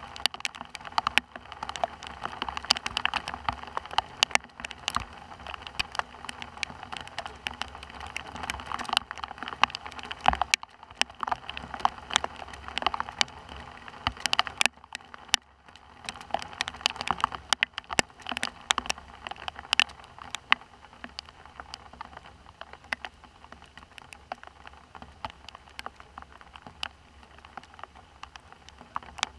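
Rain falling steadily, with drops striking close to the microphone in many sharp, irregular ticks.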